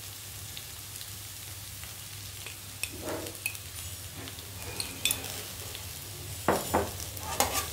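Chopped carrot, beans and moong dal sizzling quietly in oil in a non-stick kadai, a steady hiss. A spoon makes a few light clicks and knocks on the pan as salt is added, with a cluster of them near the end.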